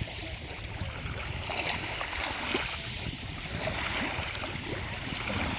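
Stream water flowing steadily over stones, a continuous rushing with small gurgles and bubbles.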